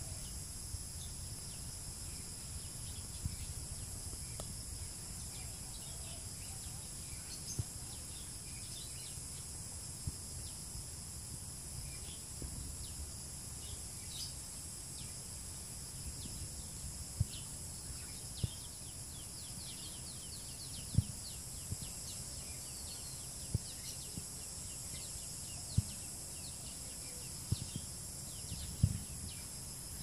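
Steady high-pitched drone of insects, with many short falling chirps joining in from about halfway. Several soft thumps come in the second half.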